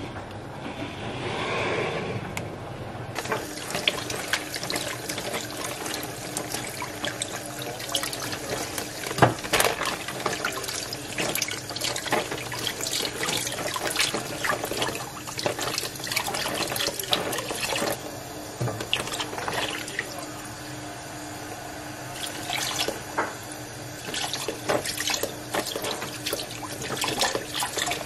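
Kitchen tap running into a stainless steel sink as raw chicken is rinsed by hand, with splashing and the rustle of the plastic bag it sits in. The water starts about three seconds in.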